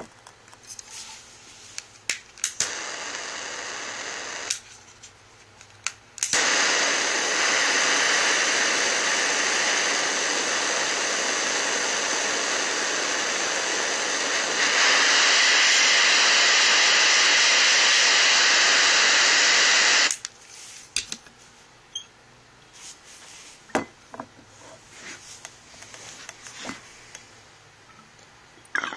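Handheld butane torch hissing steadily for about fourteen seconds, heating the dab nail, louder partway through and then shut off abruptly. Light glass clicks and taps follow.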